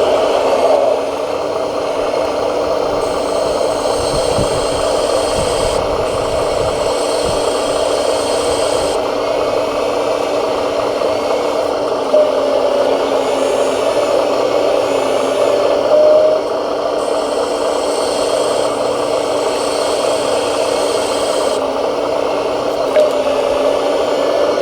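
Small electric motors and gearing of radio-controlled model construction machines whining steadily, with a couple of short rises in pitch and some rattling and knocking in the middle.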